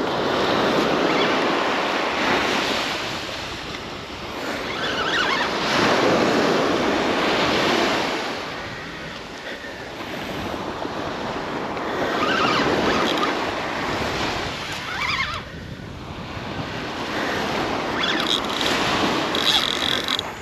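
Surf breaking on a sandy beach, the wash swelling and fading every few seconds, with wind buffeting the microphone.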